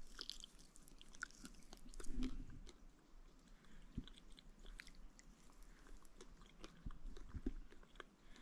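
A man chewing a small native fig fruit close to the microphone: faint, scattered wet mouth clicks, a little louder about two seconds in.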